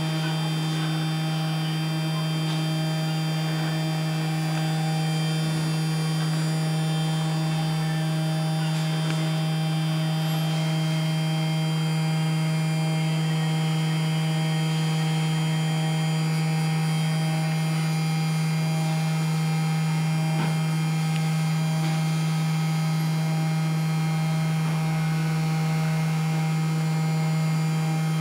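Small desktop CNC milling machine running, its DC spindle motor giving a steady hum with a thin whine of higher tones above it that does not change in pitch.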